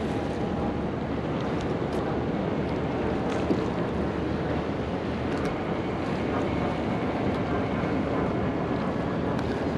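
Steady wind on the microphone with water lapping around a small boat, and a few faint ticks.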